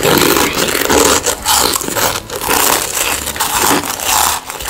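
Close-miked chewing and crunching of food, an irregular run of crisp bites and mouth noises.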